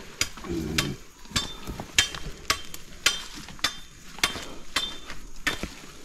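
Steady strokes of a metal digging tool hitting hard earth and stone, about two strikes a second, several with a short metallic ring, as a garrobo burrow is dug open.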